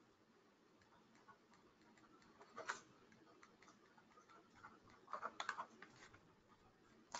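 Near silence: faint room tone from an open microphone, with a single soft click about two and a half seconds in and a short cluster of clicks about five seconds in.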